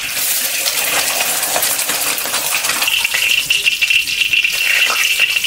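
An egg frying in a hot wok, with a loud, dense crackling sizzle that starts suddenly as the egg goes into the pan.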